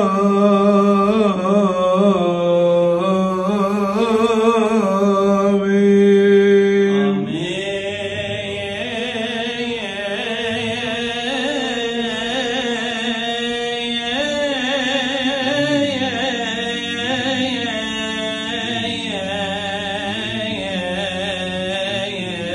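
A man's voice chants a Coptic liturgical deacon's response into a microphone, in long-held notes with vibrato. About seven seconds in the sound cuts to quieter, more ornamented chanting.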